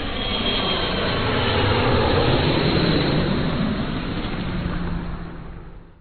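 Airplane engine noise, a steady rush that grows louder to a peak about halfway, then fades out near the end.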